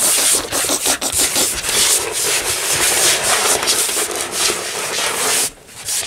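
Husky puppy chewing and tugging a rope toy right against the camera's microphone: loud, dense scratchy rubbing and scraping of fur and rope on the microphone. It stops abruptly about five and a half seconds in.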